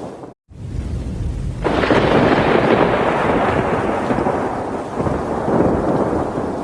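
Thunder: a low rumble, cut by a brief dropout just after the start, then a loud clap about a second and a half in that rolls on and slowly fades.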